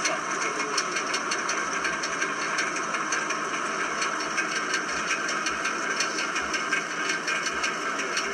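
Land Rover Discovery 2's V8 engine running with a fast, irregular ticking over its steady note: the bad sound that the owners fear means the car has reached the end of its life.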